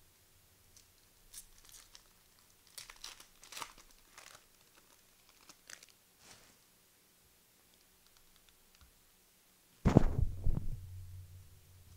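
Trading-card pack wrappers and box packaging being torn open and crinkled, in scattered short bursts, then a louder sudden rustling thump about ten seconds in.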